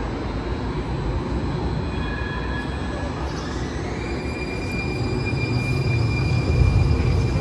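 Muni Metro Siemens LRV4 light-rail car arriving at an underground platform: a steady rumble of the train on the rails that grows louder near the end. Thin high whines run through it, one stepping up in pitch about halfway.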